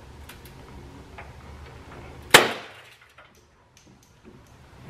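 Old plastic windshield washer nozzle on a Jeep Patriot hood snapping as it is broken off rather than unclipped: a few faint clicks of handling, then one sharp, loud crack about two and a half seconds in.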